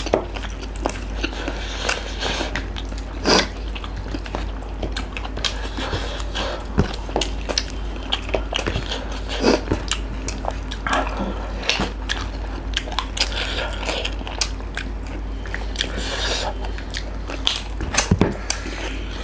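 People eating with their hands: close chewing, biting and mouth smacks, with irregular short clicks and crunches, over a steady low hum.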